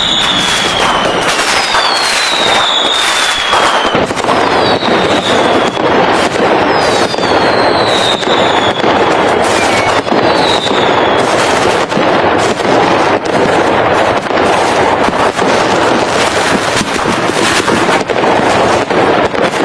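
Fireworks going off: dense, continuous crackling and bangs, with several whistles falling in pitch during the first half.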